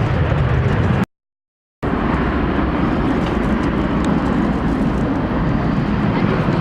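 Jet aircraft engine noise, a loud steady rumble, cut to silence for under a second about a second in, then resuming.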